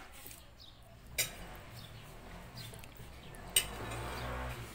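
Spoons clinking against plates during a meal, with a sharp clink about a second in and a louder one near the end, followed by a brief rustle.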